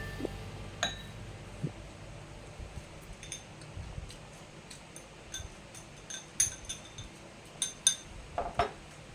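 Scattered light clinks of small hard objects: a dozen or so short, bright ticks, sparse at first and coming closer together in the last few seconds.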